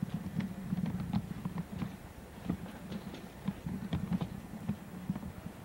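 Footsteps on a hard office floor: a quick, irregular series of light clicks and knocks over a steady low hum.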